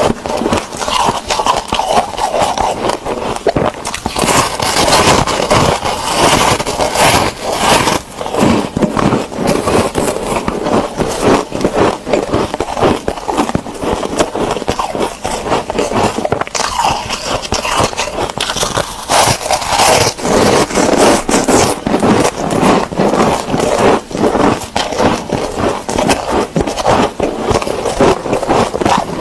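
Close-miked crunching of a green block of foam ice (freezer-frost ice), bitten off and chewed in a dense, continuous run of crisp crunches.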